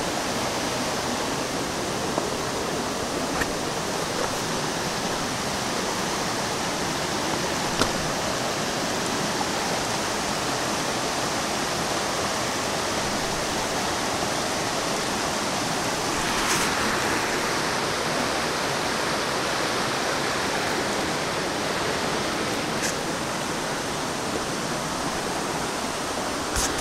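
Shallow rocky stream running over small cascades: a steady rush of water, with a few brief clicks scattered through it.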